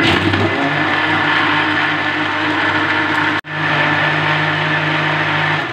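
Electric countertop blender running at speed, grinding a chilled milk drink with chopped nuts: a steady whirring that breaks off for an instant about three and a half seconds in, then carries on.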